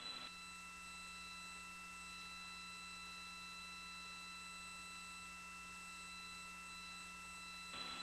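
Faint steady electrical hum with several constant tones and a light hiss on an idle launch-control communications loop, with no one talking on the line.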